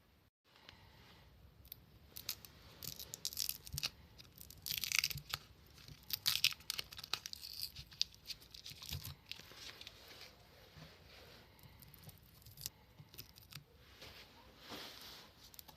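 Irregular scratching, crinkling and tearing sounds with small sharp clicks, from hand work on the parts.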